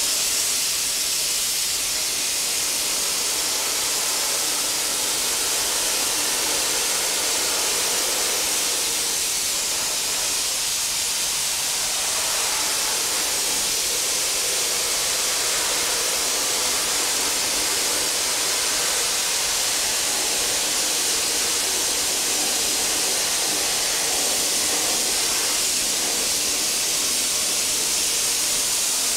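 Soda-blasting nozzle firing compressed air and soda media at a bare car body shell and its box sections: a steady, unbroken, bright hiss.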